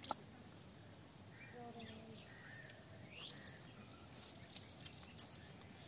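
Quiet outdoor background: a faint distant voice and a brief rising bird chirp, with a few sharp clicks near the start and end.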